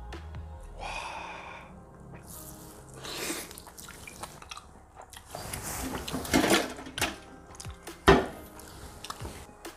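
Wet slurping and sucking as steamed oysters are eaten straight from the shell, in a few noisy spells, the loudest in the middle. A single sharp knock near the end.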